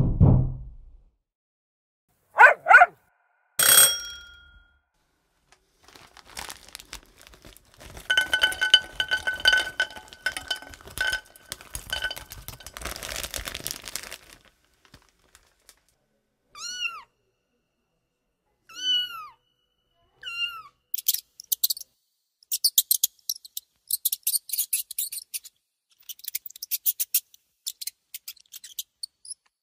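A string of short sound effects meant to set off a cat: a couple of squeaks near the start, a crinkling rustle with a steady whistle through the middle, four short high calls that bend down in pitch, then fast high scratchy clicking near the end.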